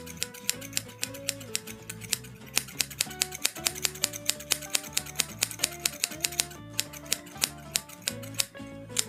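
Small scissors snipping through hair in quick, repeated cuts while trimming bangs, over background music.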